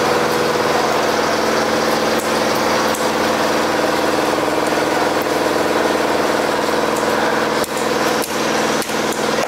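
A small engine runs with a steady drone and hum throughout. Near the end, three sharp knocks come from a cleaver chopping into a large fish on a wooden block.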